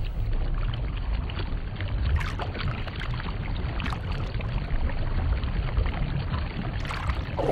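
Underwater stream ambience: a steady low rumble of moving water, with a faint hiss above it.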